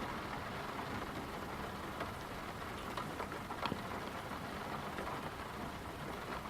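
Steady rain making an even hiss, with a couple of faint drip-like taps around the middle.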